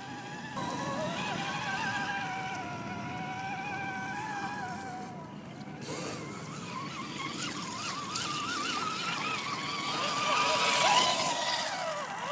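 Axial SCX10 radio-controlled crawler driving, its electric motor whining up and down with the throttle over the churn of its tyres, louder near the end.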